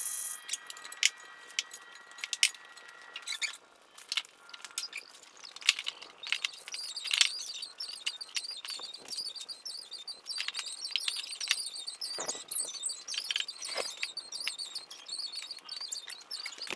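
Small birds chirping, with scattered sharp clicks and knocks throughout.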